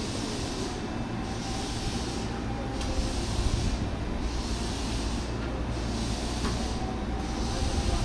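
Railway station platform ambience: a steady low rumble with a high hiss that swells and fades over and over, a little over a second apart.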